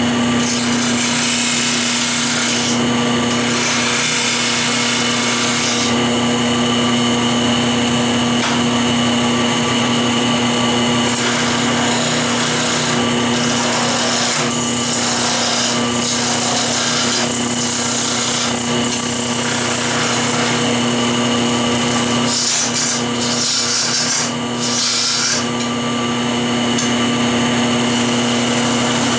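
Wood lathe running with a steady motor hum while a hand-held turning tool cuts into a spinning hickory blank, roughing the square stock round. The scraping hiss of the cut rises and eases as the tool moves along the wood.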